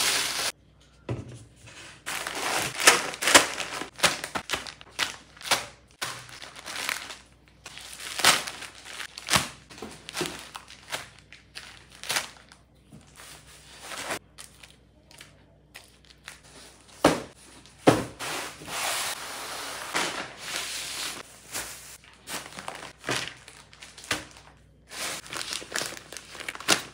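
Plastic grocery packaging crinkling and rustling as packs of noodles, nappies and other bagged goods are picked up and stacked on a kitchen counter, with a few knocks as items are set down.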